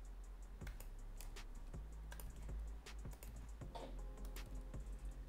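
Faint, scattered clicks of a computer mouse and keyboard as on-screen elements are selected and deleted, over a low steady hum.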